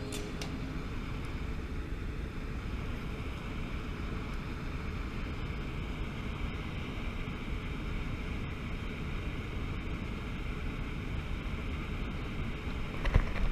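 Steady outdoor noise of wind buffeting the camera microphone over moving water beside a small boat, with no engine running; a few sharp knocks near the end.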